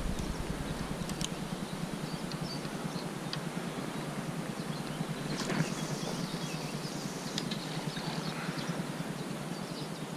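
A fishing rod cast: one brief whoosh about halfway through as the rod sweeps forward, over a low outdoor breeze with faint high bird chirps.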